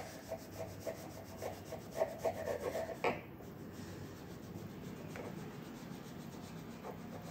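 A purple crayon rubbed back and forth on a paper colouring-book page, shading in a drawing. Quick scratchy strokes come about three a second for the first three seconds, then the shading goes on softer and steadier.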